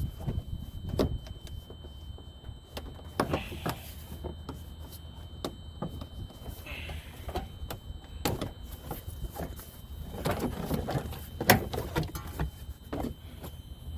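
Scattered clicks and light knocks of hand work on a car's plastic trim and its screws, irregular and of varying strength, over a low steady rumble.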